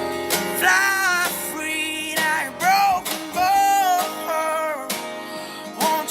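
A song playing: a man singing long notes with vibrato over strummed acoustic guitar.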